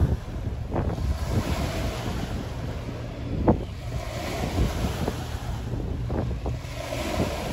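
Wind buffeting the microphone in a rough low rumble over the wash of choppy water. There are a few short knocks, the sharpest about halfway through.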